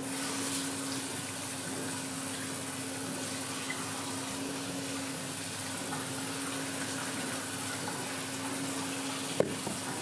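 Water running steadily from a tap over a steady low hum, with one sharp click near the end.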